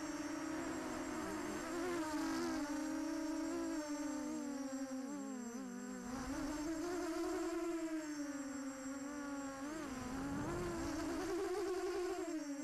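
A ZMR-250 quadcopter's four brushless motors (Sunnysky X2204S 2300KV) and Gemfan 5040 propellers buzz as it flies. The camera rides on the same quad. The pitch rises and falls with the throttle, drops sharply about ten seconds in and then climbs back.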